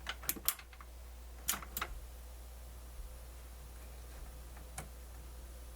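A few sharp light clicks and taps, two close pairs in the first two seconds and a faint one near the end, from multimeter probes and leads being set in place, over a steady low hum.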